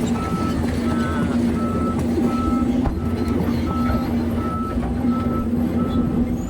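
Heavy diesel engine running steadily, with a backup alarm beeping evenly about one and a half times a second.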